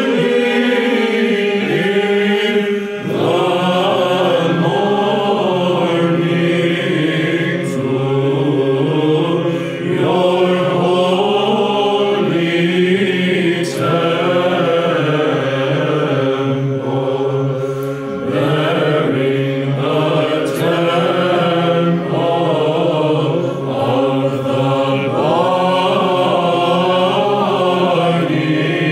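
A mixed choir of men's and women's voices singing Byzantine chant. The melody moves in unison above a steady held drone (the ison), with short breaks between phrases.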